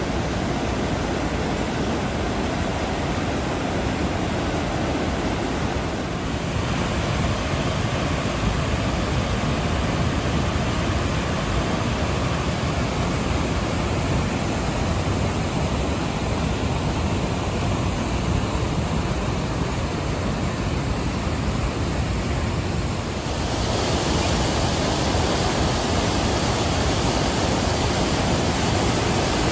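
Waterfall water rushing in a loud, steady roar with no pitch to it; the sound shifts abruptly about six seconds in and again about three-quarters of the way through.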